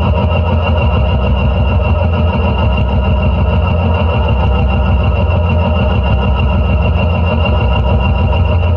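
Steady noise drone from a homemade instrument made of an old garden fork with brass rods, springs and bolts, picked up by contact mics and fed through delay and reverb. It is a dense, unbroken drone with a heavy low rumble and a high ringing tone held above it.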